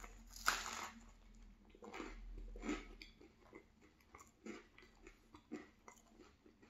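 A bite into a cheese bagel with citrus jam, with a sharp crunch about half a second in, then close-miked chewing with irregular small crunches.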